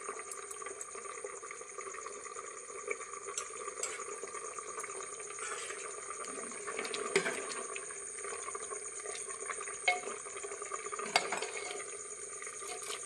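Spoon stirring cauliflower curry in a pressure cooker pot, scraping through the gravy with occasional sharp clinks of spoon against the pot.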